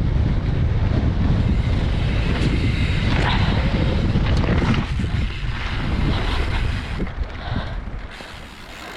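Wind buffeting the microphone over the rumble and rattle of a YT Tues downhill mountain bike running fast down a rough dirt trail. The noise eases near the end as the bike slows.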